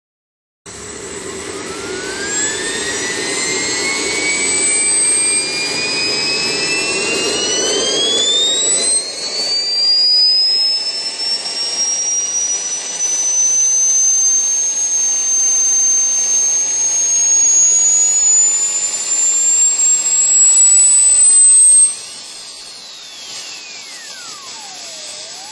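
Small gas-turbine engine of a model helicopter starting and spooling up toward flight idle: a low rumble, then a loud whine that climbs steadily in pitch over about twenty seconds. Near the end the level drops suddenly and a fainter tone swoops down and back up.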